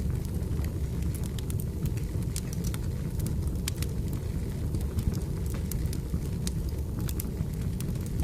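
Firewood burning: a steady low rumble of the flames with scattered, irregular sharp crackles and pops.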